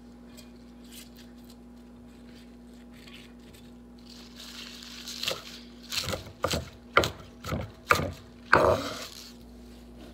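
Kitchen knife chopping fresh spinach leaves on a wooden cutting board: after a quiet stretch, a soft rustle of leaves, then about eight irregular chops, each blade stroke knocking on the board. A faint steady hum runs underneath.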